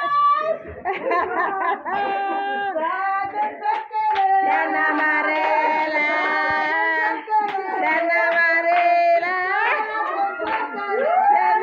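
A group of women and children singing together with hand clapping along.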